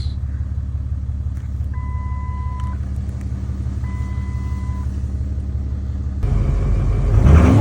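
Vehicle engine running steadily, with two long electronic beeps, about a second each, in the first half. About six seconds in, the engine gets louder and rougher and its pitch rises and falls as it is revved.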